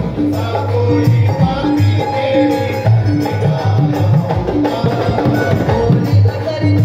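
Instrumental passage of live bhajan music: a steady hand-drum beat with jingling percussion under a melody line, no singing.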